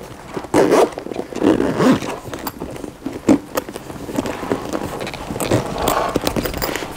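Camera bag being zipped shut and handled: a zipper running, with scattered knocks and rustles.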